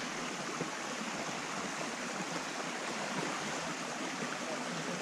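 Steady rush of flowing stream water, an even hiss without distinct splashes.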